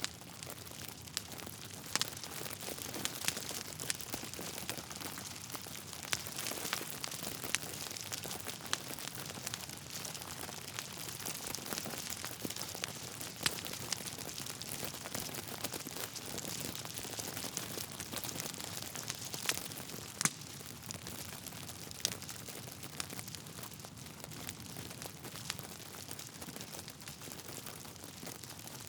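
Wood fire crackling steadily over a soft hiss, with frequent irregular pops and snaps from the burning logs.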